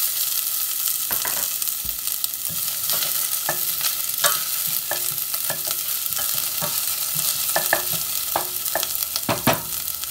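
Diced onion sizzling in hot olive oil in a stainless steel saucepan, a steady hiss with many short clicks as a wooden spoon stirs and scrapes against the pan.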